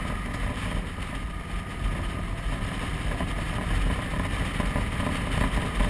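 Motorcycle under way: engine running steadily under heavy wind rush on the microphone.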